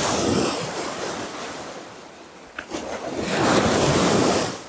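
Surf breaking on the beach: a loud rush of washing water that fades, then a second wave swelling up about three seconds in and dying away.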